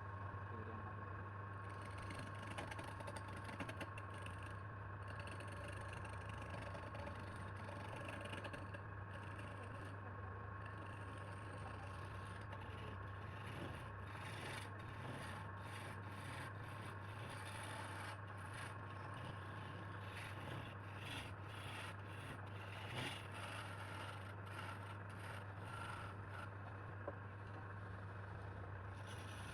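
Wood lathe motor humming steadily while a turning tool scrapes against the spinning wood in irregular bursts.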